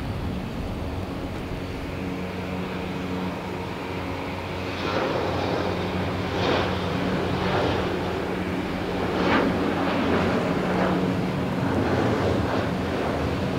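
Jet airliner engines at takeoff thrust over a steady low hum. The engine noise grows louder and rougher about five seconds in, swelling in uneven surges.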